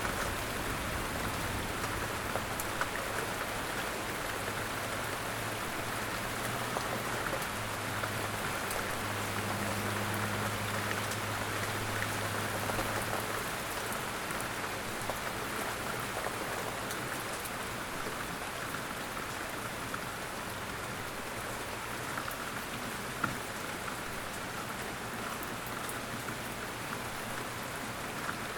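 Steady rain falling on a surface: an even hiss with scattered small droplet ticks.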